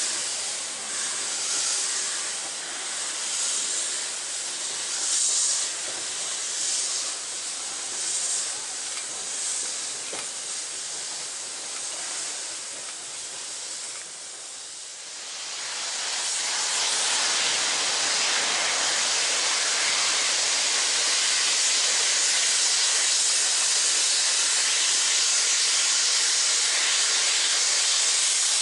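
Narrow-gauge steam locomotive getting under way with its cylinder drain cocks open, its steam hissing out in pulses about once a second with each slow exhaust beat. About halfway through this gives way to a louder, steady, even hiss.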